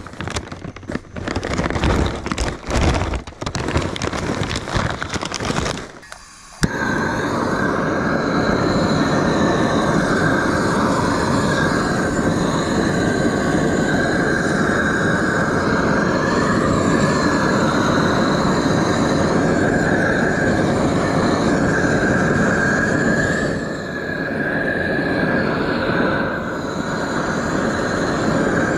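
Handheld gas torch lighting lump charcoal: the flame comes on suddenly about six and a half seconds in and runs as a loud, steady rush, easing briefly near the end. Before it, irregular rustling and knocks.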